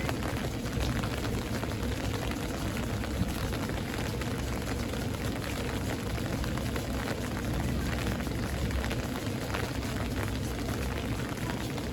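Steady rain falling in a thunderstorm: a dense, even patter of drops over a low, steady rumble.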